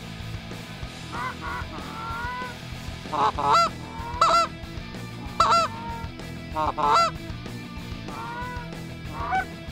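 Canada goose honks and clucks: a few fainter calls, then four loud honks in quick succession in the middle, then fainter calls again.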